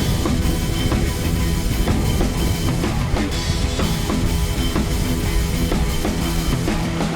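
Background rock music with a drum kit.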